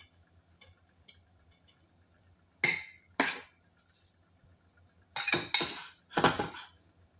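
A spoon clinking and scraping against a bowl while scooping minced fish filling: two short clinks a little under three seconds in, then a quick run of three more about two seconds later.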